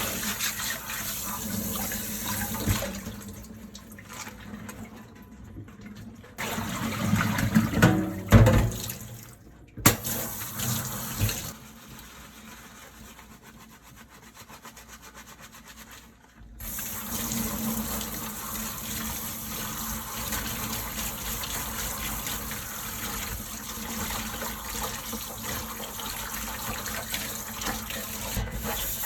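Kitchen tap running into a sink as dishes are washed and rinsed. In the middle, dishes knock and clatter while the flow drops away for a few seconds. About halfway through, the water comes back on and runs steadily.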